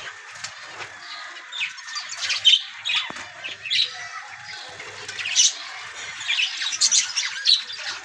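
Budgerigars chattering, with many short sharp chirps and squawks overlapping at an irregular pace.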